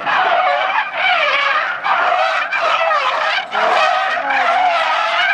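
Car tyres squealing loudly as a sedan drifts, a wavering high-pitched screech that breaks off briefly a few times.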